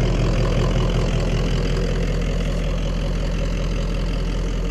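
Polaris Sportsman Highlifter 850's twin-cylinder engine idling steadily through a Big Gun EVO U exhaust with the quiet insert fitted, giving a deeper, cleaner tone.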